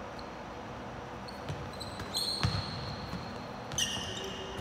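Basketball bouncing on a hardwood court, a few dull thuds around the middle, with sneakers squeaking sharply on the floor twice as players run.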